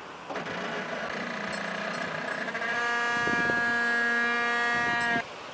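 Landing gear of a towed F-111 jet squealing as it rolls: a pitched squeal with many overtones that gets louder and steadier about halfway through, then cuts off suddenly near the end.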